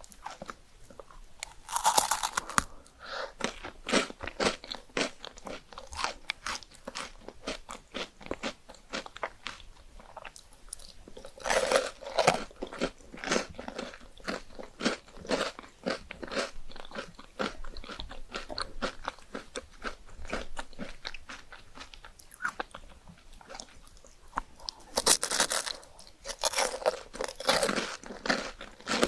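Close-miked eating of chocolate ice cream: bites and chewing made of many small clicks, with louder bursts about two seconds in, around twelve seconds in, and again near the end.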